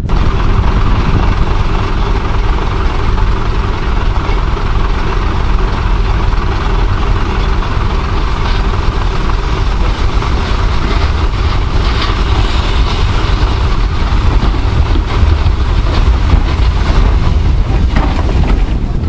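Diesel engines of a BR green first-generation diesel multiple unit idling, a steady low hum. In the second half a BR Standard Class 5MT steam locomotive draws in alongside, adding a few short knocks.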